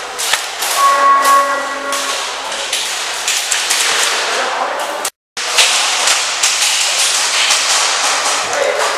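Airsoft guns firing, a rapid run of sharp pops and clacks. About a second in, a steady horn-like tone sounds for just over a second over the shots, and a little past halfway the sound drops out for a moment.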